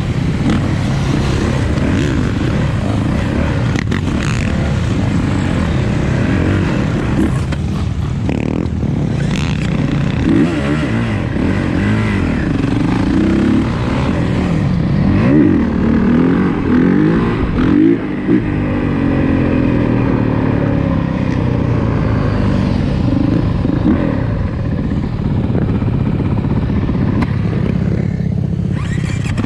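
Several motorcycle engines running and revving together, their pitches rising and falling and overlapping.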